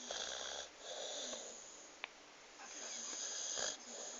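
English bulldog snoring, with two rounds of raspy breaths about three seconds apart and a small click between them.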